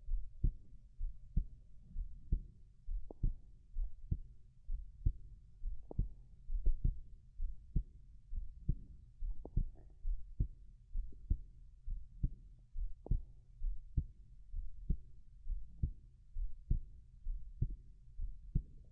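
A person's heartbeat heard up close, with steady low thumps at a little over one beat a second.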